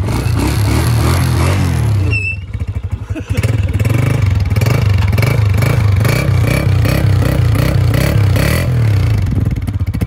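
Honda CG125's air-cooled single-cylinder four-stroke engine running at idle, heard close to the exhaust muffler, with a brief drop in the sound a little over two seconds in.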